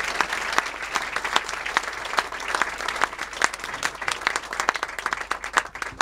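An audience applauding, a dense patter of many hands clapping that thins out and dies away near the end.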